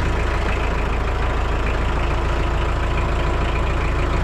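Engine running steadily at idle, a low, even hum.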